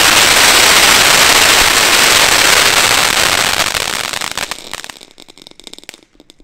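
Firework ground fountain spraying sparks with a loud, steady hiss that fades out about four to five seconds in, ending in a few scattered crackles as it burns out.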